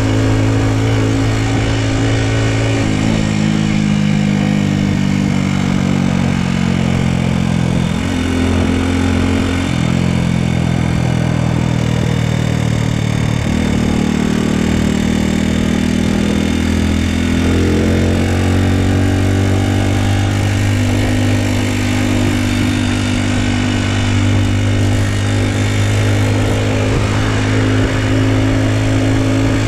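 Honda Super Cub's single-cylinder four-stroke engine running under way, its pitch falling and climbing again several times as the rider shifts gears and works the throttle.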